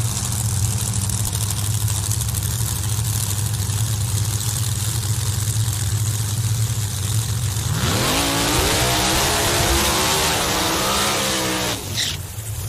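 Pro Modified drag car engine idling with a deep, steady rumble, then revving up hard about eight seconds in and holding high, wavering revs for about four seconds before cutting off suddenly.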